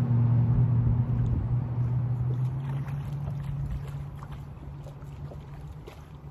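Electric trolling motor on a bass boat's bow humming steadily, then fading away over the first few seconds as it eases off.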